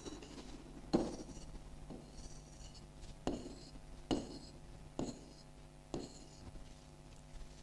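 Drawing strokes on the glass screen of an interactive touchscreen board: about six light taps roughly a second apart, each followed by a short, faint high scratch as the line is drawn.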